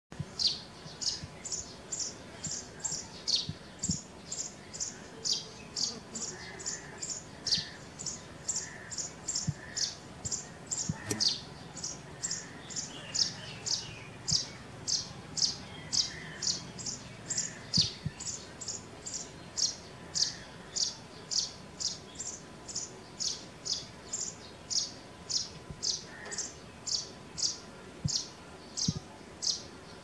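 A sparrow chirping over and over, a steady string of short high chirps at about two a second.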